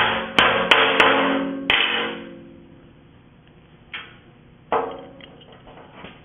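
Hammer blows on a steel post, tapping in a roll pin: four quick strikes in the first two seconds, the metal ringing after each and dying away about a second after the last. Later two lighter metal knocks and a few small clicks as the steel parts are handled.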